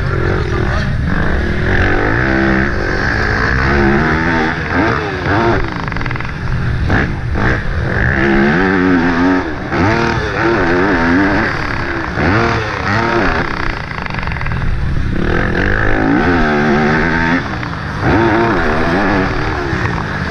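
Yamaha YZ250F's four-stroke single-cylinder engine revving up and down again and again as the rider races, climbing in pitch and dropping back with each gear change and throttle blip. It is heard from a helmet-mounted camera, with wind noise underneath.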